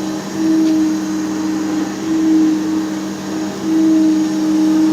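3Л722В surface grinder running with its wheel switched on: a steady hum with a higher tone that breaks off briefly and returns about every one and a half to two seconds, in step with the table travelling back and forth under automatic feed.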